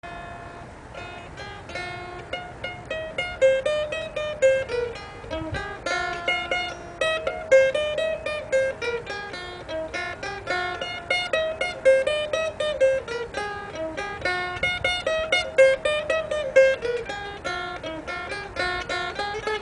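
Solo mandolin picking a Scottish tune: a quick, steady stream of plucked single notes carrying the melody.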